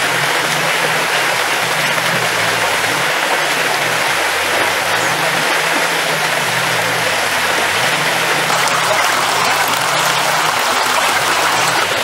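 Shallow river rushing steadily over a rocky riffle.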